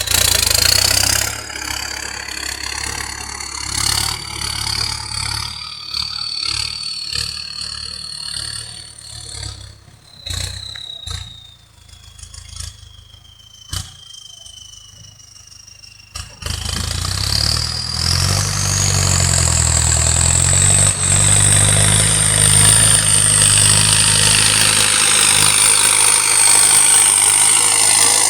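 Ford tractor engine with an aftermarket turbocharger running, the turbo whistling over the engine note. At low revs the whistle slowly falls in pitch. About 16 s in the engine revs up and the whistle climbs steeply to a high, steady scream.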